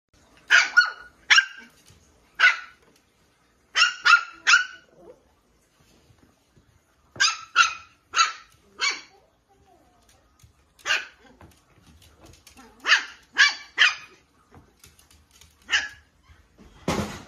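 A small dog barking in short, sharp, high-pitched yaps, in quick runs of one to four with pauses between: play barking to get the other dog to play.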